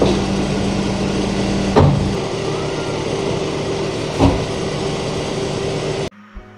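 Car engine idling with a steady hum. A car door shuts with a thud about two seconds in and again about four seconds in, and the engine sound cuts off abruptly about six seconds in.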